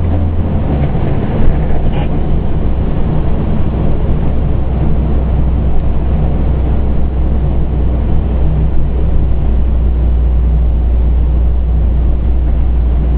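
Pierce Enforcer fire engine's diesel engine and road noise heard from inside the cab, a loud, steady low drone as the truck drives. The engine note drops in pitch about a second in.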